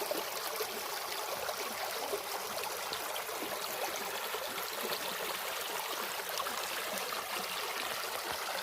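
Shallow mountain creek flowing, a steady even babble of water.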